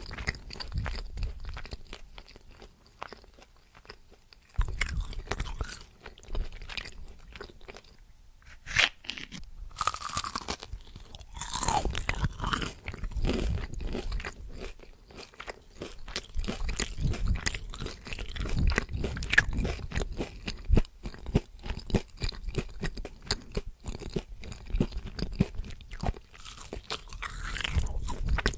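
A person chewing and biting into crunchy food close to the microphone, with irregular crunches and mouth sounds throughout.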